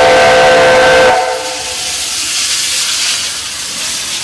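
Steam locomotive whistle sounding a steady chord that cuts off about a second in, followed by the loud hiss of steam as the engine rolls in.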